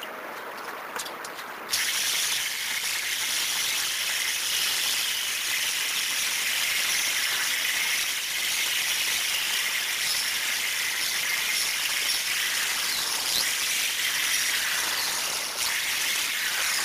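Cordless drill running almost without pause as its bit bores through the plastic caps of a case of water bottles, one cap after another. It starts up about two seconds in as a steady, hissing whir.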